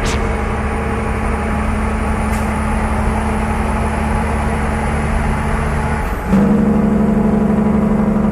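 Semi truck's diesel engine running with a steady drone that jumps louder about six seconds in.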